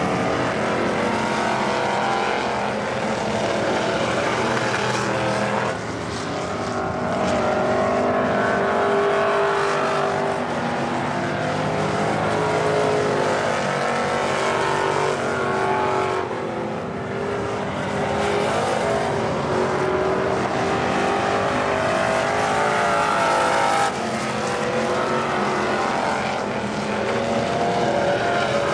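Dirt-track stock cars running laps on a clay oval, several engines at high revs whose pitch rises and falls as the cars accelerate down the straights and lift for the turns.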